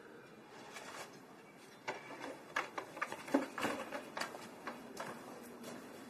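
A run of light, irregular clicks and knocks, starting about two seconds in and lasting about three seconds, over faint room tone.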